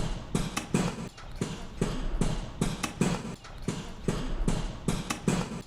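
Horse hooves clip-clopping at a steady pace, about two to three hoof strikes a second.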